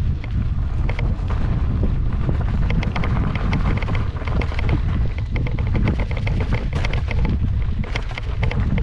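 Heavy wind rumble on the microphone as an electric unicycle rides down a rough dirt trail, with quick clusters of rattling clicks as it jolts over the rocks and ruts.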